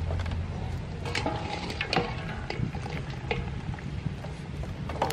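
Boiled oxtail pieces ladled out of a pot into a bamboo basket: wet meat dropping and a metal strainer ladle knocking and clattering, a few sharp strikes about a second apart, over a low steady rumble.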